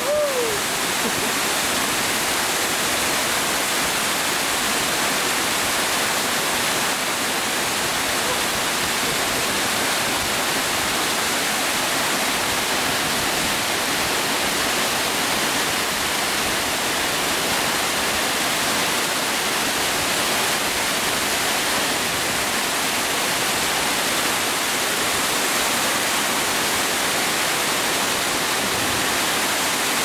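Waterfall crashing down rock into a pool close by: a steady, unbroken rush of falling water.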